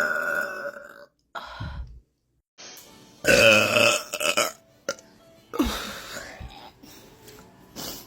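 A person burping, several separate loud belches: a long one trailing off about a second in, a short one soon after, a loud one around three seconds in, and another near six seconds.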